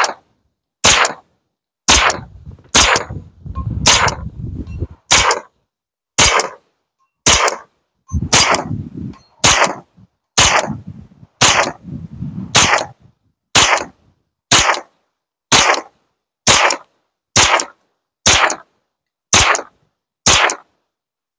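Kalashnikov USA KR9, a direct-blowback 9mm carbine, fired semi-automatically in a steady string of single shots about a second apart, some twenty in all. The shots are unsuppressed: the can on the muzzle is a fake suppressor.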